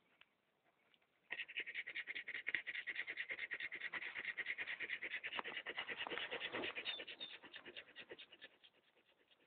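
A dog right at the microphone making a fast, even rhythmic sound of many short strokes a second. It starts suddenly a little over a second in and fades out near the end.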